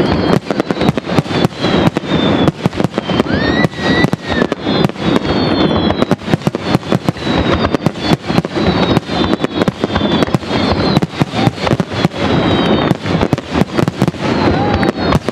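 Aerial firework shells bursting in a dense, continuous barrage, many bangs a second with no pause.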